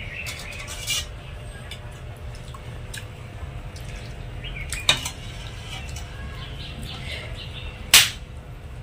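Steel ladle clinking against a steel plate while mung dal is served over rice: a few sharp clinks, the loudest near the end.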